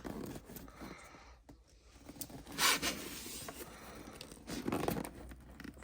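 Scraping, rustling and tearing of packaging as a box is pulled at by hand to get it open, with a sharper rip about two and a half seconds in.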